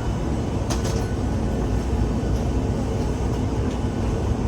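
Steady low rumble of a jet airliner, with a couple of faint clicks about a second in.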